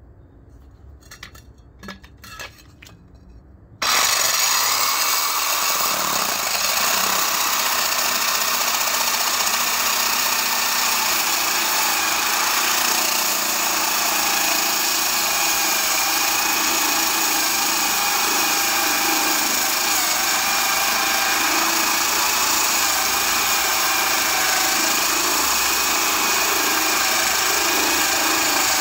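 A few faint clicks, then about four seconds in an electric drill starts abruptly and runs steadily, turning a homemade core bit that grinds into wet concrete.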